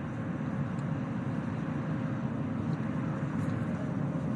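Steady jet noise from the JF-17 Thunder's single jet engine as the fighter comes in to land, with a faint steady tone above it.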